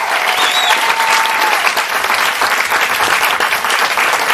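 Theatre audience applauding loudly and steadily, a dense crowd clapping.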